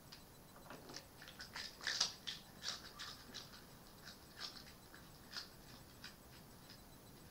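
Red fox making a run of irregular, sharp clicks and crunches, loudest about two seconds in and thinning out near the end.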